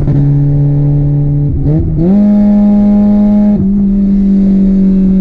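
Honda Civic engine with a rod knock, run hard at high revs under load. It drones at a steady pitch, falters briefly about two seconds in, then holds steady at a higher pitch.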